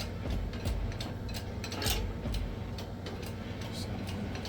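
A run of light, irregular clicks and ticks, a few each second, over a low steady hum.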